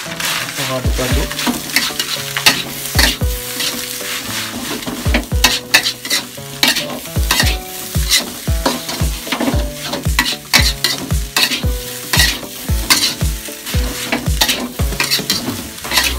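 Metal spatula scraping and knocking against a metal wok as egg fried rice is stir-fried over the heat, in quick repeated strokes about twice a second over a steady sizzle.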